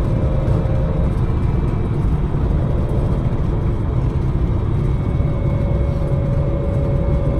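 Datsun 260Z's straight-six engine on triple Mikuni carburettors running steadily while the car is driven, with a constant low rumble of engine, road and wind noise and no revving.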